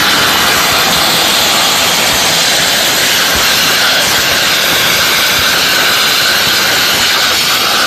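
CNC plasma torch cutting steel plate. It gives a loud, steady hiss that holds the same level throughout.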